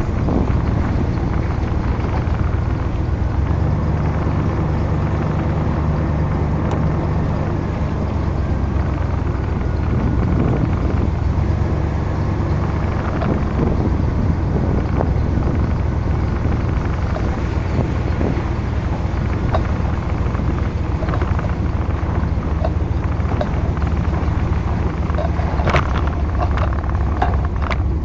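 Vehicle engine hum and road noise while driving, picked up by a camera mounted on the vehicle's roof. A few sharp clicks come near the end.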